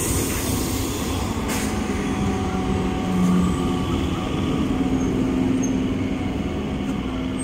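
Indian Railways electric multiple unit (EMU) passenger train rumbling at a station with a steady hum. A short hiss comes about a second and a half in.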